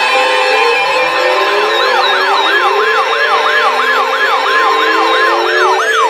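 Several weather alert radios sound their hurricane-warning alarms together, overlapping: a steady tone near 1 kHz with lower gliding tones under it. About a second and a half in, a fast siren-like whoop joins, repeating about three times a second.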